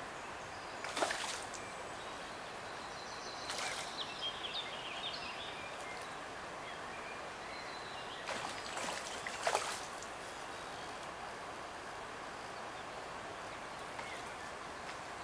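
River water flowing with a steady rush. A few short, sharper sounds stand out about a second in and twice around nine seconds, and faint bird chirps come in near four seconds.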